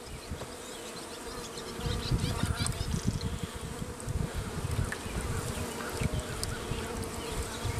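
Honeybees buzzing around an open hive in a steady hum. An uneven low rumble joins in from about two seconds in.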